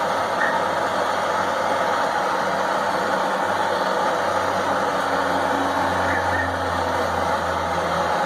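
Steady mechanical running noise with a low hum, no strikes or impacts; the hum grows stronger about halfway through.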